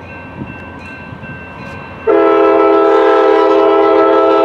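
Amtrak Pacific Surfliner train's air horn, faint at first, then sounding loud about two seconds in as a steady multi-note chord held through to the end.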